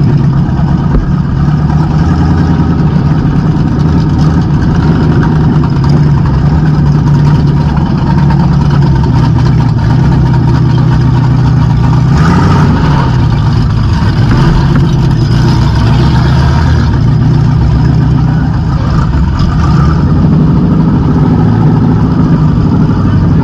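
Demolition derby car's engine running loud through open straight exhaust stacks, heard from inside the stripped cabin while the car idles and rolls at low speed. The engine note rises and falls briefly about twelve seconds in.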